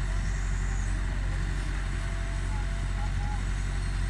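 Hitachi backhoe's diesel engine running steadily under load as it works to dig itself out of mud.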